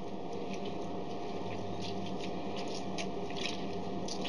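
A lemon being juiced by hand: faint wet squishing and small scattered clicks over a steady low hum.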